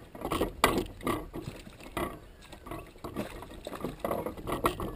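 Irregular clicks and knocks as a hooked fish is played: a spinning reel being wound in, with gear knocking in the aluminium boat, one sharp knock about half a second in.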